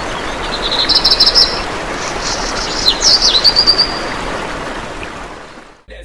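Small birds chirping and trilling, two quick runs of high notes about a second in and again around three seconds in, over a steady rushing background noise that fades in and out.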